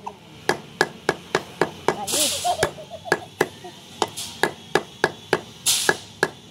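Meat cleaver chopping goat meat into small pieces on a wooden stump block: quick, even blows, about four a second. A brief hiss sounds twice, about two seconds in and near the end.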